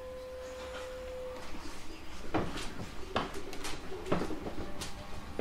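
Inside a 719 series electric train: a steady tone fades out about a second and a half in, then irregular knocks and clatter set in, several a second.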